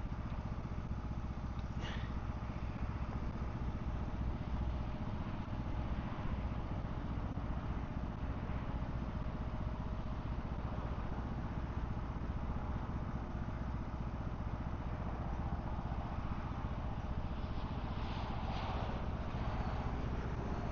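A vehicle engine idling steadily, a low continuous hum.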